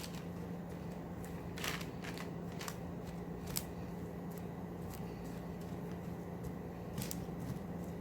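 Candy-coated popcorn being spread across a wax-paper-lined baking sheet: scattered light rustles and crackles, a few seconds apart, over a steady low hum.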